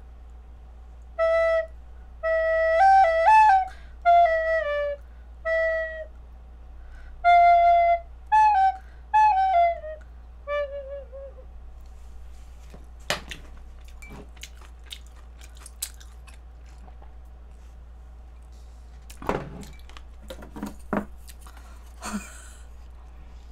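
A pink plastic recorder playing a short, simple tune of about a dozen notes, ending on a lower wavering note about eleven seconds in. Scattered clicks and knocks follow.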